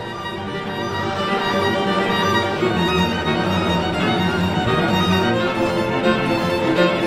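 Instrumental soundtrack music led by violin and other bowed strings, swelling slightly over the first couple of seconds.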